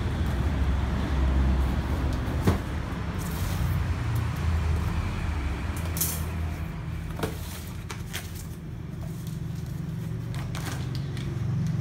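Cardboard box being unpacked by hand: scissors cutting packing tape, then the box and its flaps handled and opened, giving scattered clicks and short scraping rustles. A steady low rumble runs underneath.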